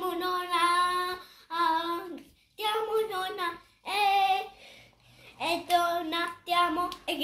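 A young boy singing, in short phrases of held notes with brief pauses between them.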